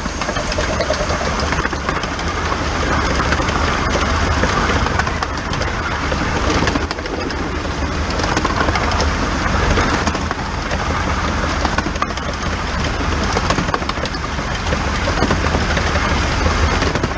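Running noise of the 15-inch-gauge steam locomotive 'The Bug', heard close from a camera mounted on its injector pipe: a loud, steady rush of motion, wind and wheel-on-rail noise with a low rumble and irregular rattles, and no clear rhythm.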